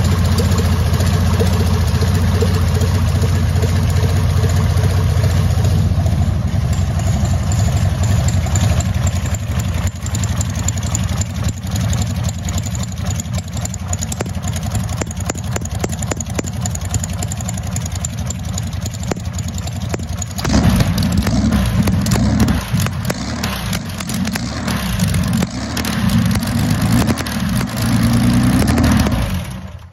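Freshly rebuilt 22.4-litre Sunbeam Matabele V12 aero engine of the Sunbeam 1000hp running on a test run. It runs steadily, turns more uneven about six seconds in, is revved up in bursts from about twenty seconds in, and is shut off, stopping abruptly at the very end.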